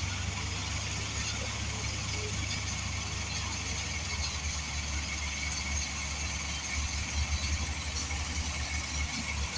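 Heavy-equipment diesel engine running steadily with a low rumble, swelling briefly about seven seconds in.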